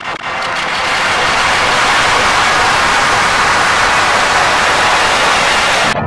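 Loud, harsh static-like noise from heavily distorted, effect-processed logo audio. It swells in over the first second, holds steady, and cuts off abruptly near the end.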